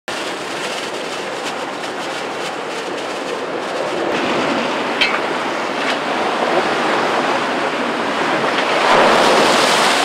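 Wind and sea rushing past a sailing yacht under way, the rush swelling near the end as a wave sends spray over the cockpit.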